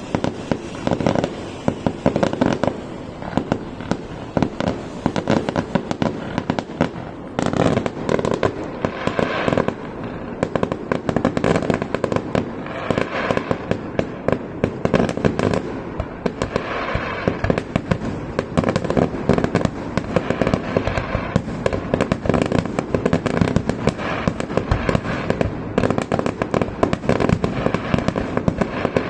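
Fireworks finale barrage: a dense, unbroken run of bangs and crackling, many shots overlapping every second.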